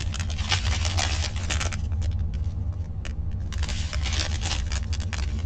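Clear plastic bags of diamond painting drills crinkling and rustling as they are handled, in two spells with a few sharper crackles, over a steady low hum.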